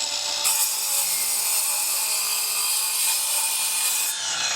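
Craftsman V20 cordless miter saw with its 7.25-inch 40-tooth carbide blade cutting through bamboo flooring. The motor runs at full speed with a steady whine. About half a second in the blade bites into the wood with a dense high hiss, which stops near the end, leaving the blade spinning free.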